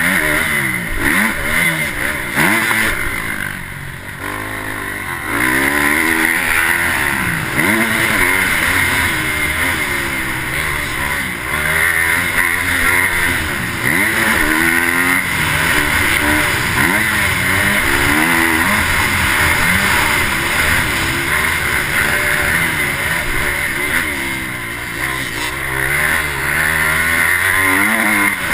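Motocross dirt bike engine heard from the rider's helmet camera, revving up and falling back again and again as the rider works the throttle and shifts around the track, with a short let-off about four seconds in. A steady rush of wind over the camera runs underneath.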